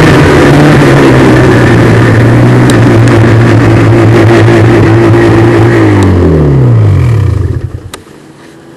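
Snowmobile engine running loud and steady at trail speed, with a rush of wind and track noise. About six seconds in the throttle is let off: the engine note falls in pitch and the sound drops away sharply as the sled slows near the end.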